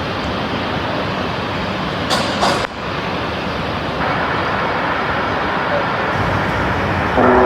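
Steady road traffic noise from passing vehicles, with a short hiss about two seconds in. Near the end, the first pitched notes of the outdoor public-address loudspeaker's chime melody begin.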